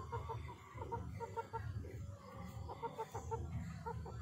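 Chickens clucking: runs of short, quick clucks, several a second, with a few pauses, over a low rumble.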